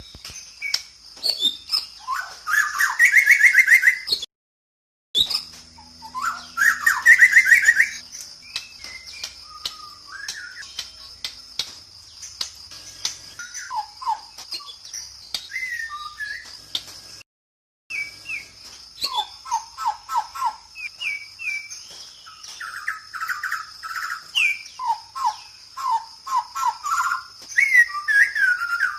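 Wild tropical forest birds calling and singing in Borneo: rapid trills and chirps, loudest about 3 and 7 seconds in, then runs of short repeated whistled notes, over a steady high-pitched hum. Two brief cuts to silence split three separate recordings.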